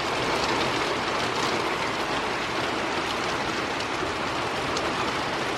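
Rain pouring steadily in a thunderstorm, an even, dense rush without a break.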